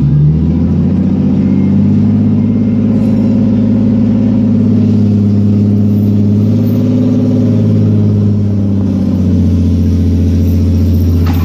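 A vehicle engine running steadily under load, its pitch drifting slightly, cutting back right at the end.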